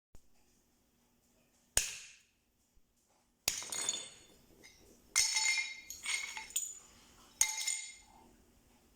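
Hard objects struck together for Foley, about six sharp clinks at uneven intervals, each with a brief bright ringing tone like glass.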